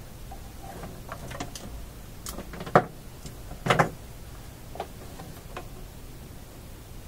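Scattered sharp clicks and taps from test leads and a probe being handled and touched onto capacitor leads in a tube amplifier chassis. The loudest click comes near the middle, followed by a quick cluster of several.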